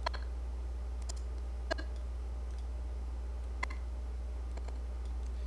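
Computer mouse clicks, a few isolated sharp ones spread over several seconds, over a steady low hum.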